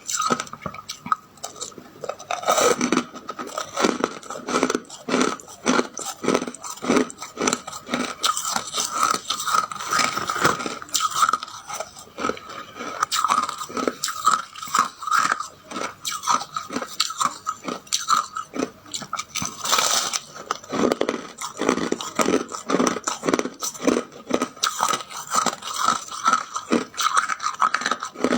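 A person biting and chewing ice, with rapid, irregular crunches several times a second. A steady thin high tone runs underneath.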